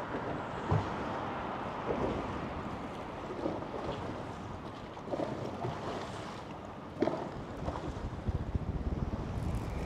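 Wind buffeting the microphone and choppy waves slapping against the hull of a small jet boat, with irregular splashes. The buffeting grows rougher near the end.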